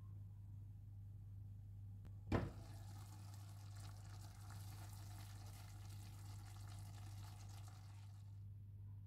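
A sharp click about two seconds in, then a soy-meat, carrot and tomato stew simmering in an uncovered frying pan with a soft, steady sizzle that stops shortly before the end. A steady low hum runs underneath.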